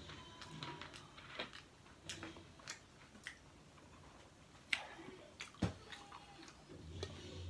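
Faint scattered clicks and taps of a plastic 2-litre soda bottle being picked up and handled, with two sharper knocks a little past the middle.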